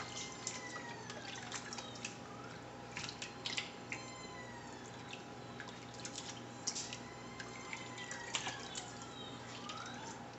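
Faint drips and small splashes of liquid as raw turkey wings are worked in apple cider vinegar, with scattered light clicks and knocks.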